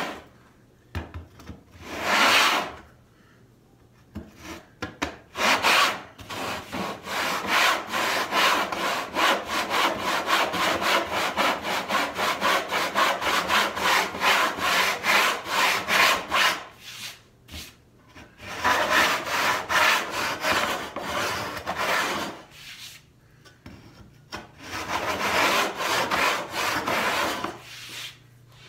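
Hand backsaw cutting into a thick walnut board in bouts of quick back-and-forth strokes, the longest running about ten seconds in the middle, with short pauses between bouts. The saw is kerfing the waste for a rabbet.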